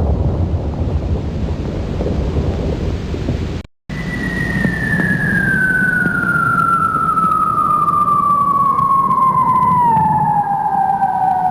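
Cartoon bomb-drop sound effect: a low rumbling noise, cut off briefly a few seconds in, then the whistle of a falling bomb, one long tone sliding steadily downward in pitch over about seven seconds above the continuing rumble.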